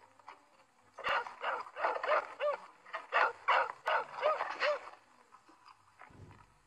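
Dog barking in a rapid run, about a dozen barks over some four seconds, starting about a second in. A dull low thump near the end.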